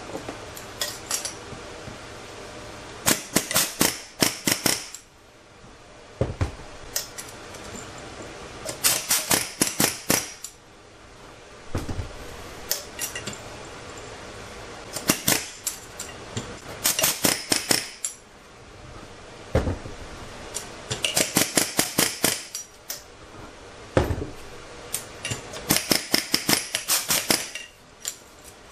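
Air hammer driving a ring gear off a differential carrier: short bursts of rapid metallic hammering, each a second or two long, repeated every few seconds with pauses in between.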